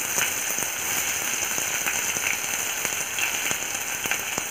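Chopped onions sizzling in hot oil in a kadhai, just added to the tempering of mustard seeds, cumin and curry leaves, with scattered sharp crackling pops.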